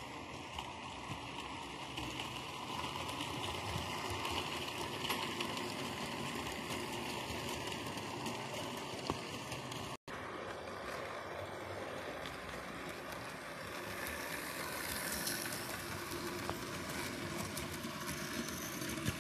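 Model railway trains running on the layout: a steady whirr of small electric motors and wheels rolling on the rails, with scattered light clicks. The sound drops out for an instant about halfway.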